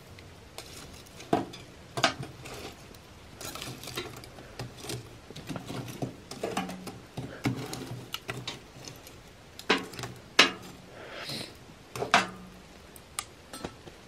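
Small metal poker scraping and clinking against a wood stove's firebox as it rakes glowing coals and a burnt-down log. There are several sharp knocks, the loudest about ten seconds in.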